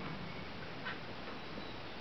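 A faint click about a second in, with another lighter one, over a steady hiss; no engine is running.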